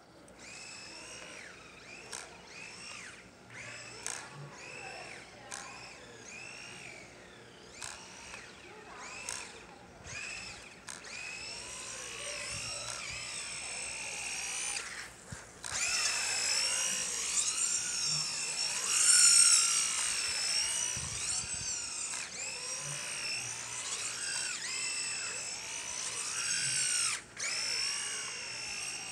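Tamiya Grasshopper 1/10 RC buggy's brushed 540 electric motor and gears whining, the pitch rising and falling again and again as the throttle is worked, with a few sharp ticks. It is loudest about two-thirds through.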